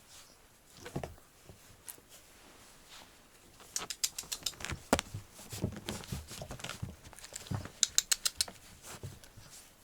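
A puppy moving about: two quick runs of light, sharp ticking, about four and eight seconds in, with a few soft thumps scattered between them.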